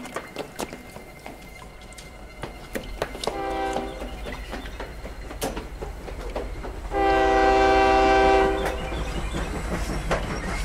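A horn blows a short note and then a longer, louder one of about a second and a half, over a steady low rumble and scattered clicks.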